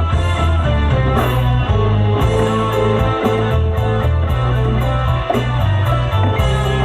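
Music with guitar over a stepping bass line and a steady hi-hat beat.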